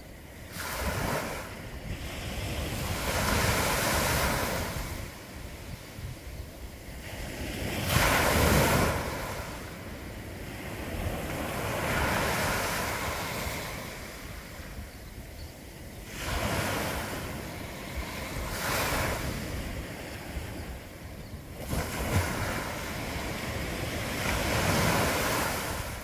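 Small Mediterranean waves breaking and washing up a sandy beach. The surf swells and falls back every few seconds, with the loudest wash about eight seconds in.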